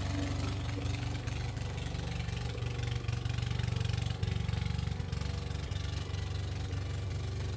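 Gas walk-behind lawn mower's small engine running steadily while cutting grass.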